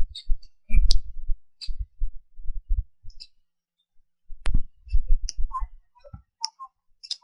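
Wind buffeting the microphone in uneven gusts of low rumble, with scattered small clicks.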